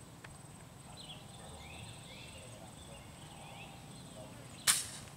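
Faint bird chirps, then near the end a single sharp, loud shot from an air rifle.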